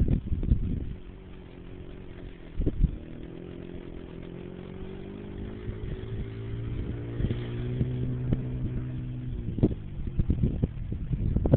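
Kawasaki 90 youth four-wheeler engine running, its note rising a little, then holding steady for several seconds before dropping away. Low thumps at the start and near the end.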